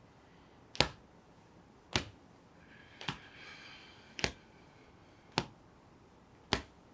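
Soft-fist taps on the chest just below the collarbone, a sharp tap about once a second, six in a steady rhythm.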